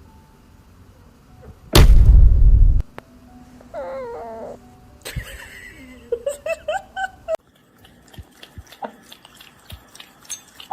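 A loud thump lasting about a second, then a pet animal crying in two spells of whining calls that rise and fall in pitch, followed by scattered light clicks.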